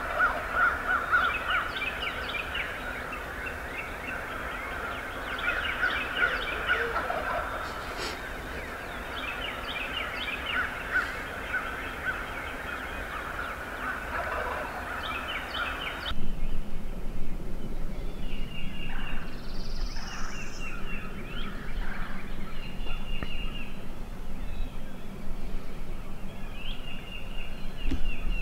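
Wild turkeys gobbling over and over at a distance, with other birds calling in the background. The background changes abruptly about halfway through.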